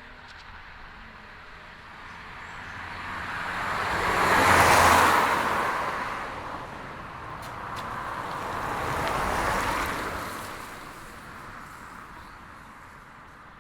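Two cars passing by on a road one after another, tyre and engine noise swelling up and fading away: the first passes about five seconds in and is the louder, the second about nine and a half seconds in.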